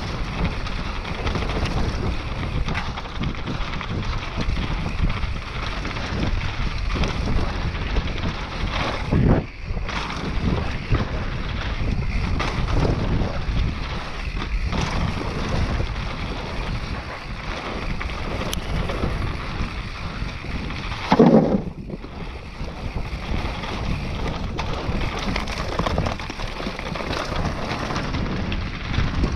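Mountain bike riding down a dirt enduro trail: wind rushing over the microphone and tyres rolling on the ground, with the bike clattering over bumps and a louder thud about 21 seconds in.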